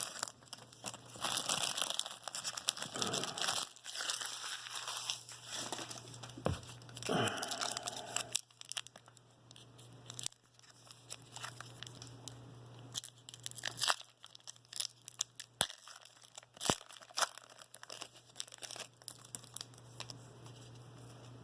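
Foil wrapper of a baseball card pack being torn open and crinkled, in rustling spurts for about eight seconds, then sparser light clicks and snaps as the cards are handled.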